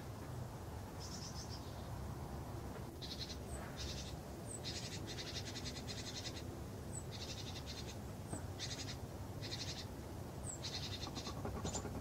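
A small songbird giving about ten short, rapid high-pitched trills, with gaps between them and a few brief sharp high notes, over a faint steady low hum.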